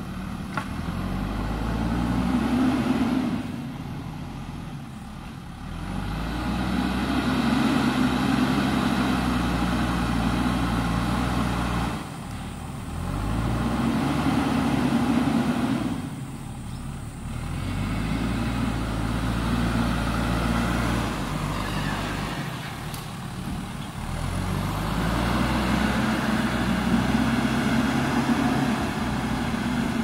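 JCB backhoe loader's diesel engine revving up and dropping back in about five surges of several seconds each, as it works under load pushing and carrying soil with its front bucket.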